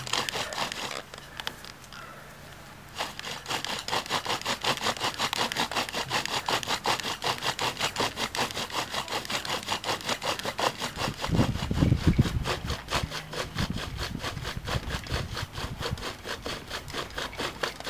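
Wooden drill spindle spun back and forth in a fireboard by a cord and spring-pole (a bow drill without the bow): rhythmic wood-on-wood friction rubbing, stroke after stroke. It pauses briefly about a second in, then runs on steadily; the wood is rain-wet, so no ember is expected.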